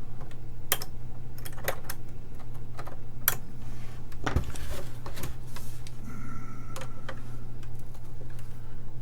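Irregular clicks and scrapes of a tool picking hardened filler out of a screw hole in a TRS-80 Model I's plastic case, with a longer scraping stretch midway, over a steady low hum.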